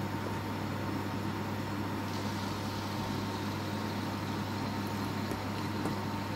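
Steady low hum with a faint higher whine and an even hiss, like an appliance or fan running; the hiss brightens slightly about two seconds in.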